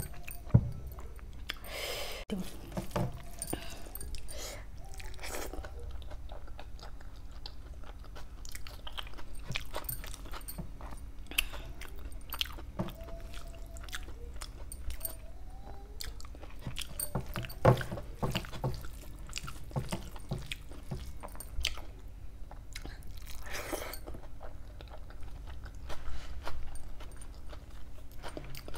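Close-up eating sounds: a person chewing mouthfuls of rice and chicken kofta curry eaten by hand, with many short wet mouth clicks, and fingers mixing rice on a steel plate.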